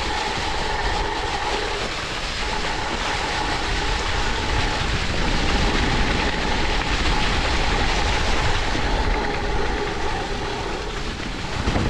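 Greyp G6.3 electric mountain bike being ridden on a trail: a steady electric-motor whine over a rumble of tyre and wind noise, the whine fading in the middle and returning.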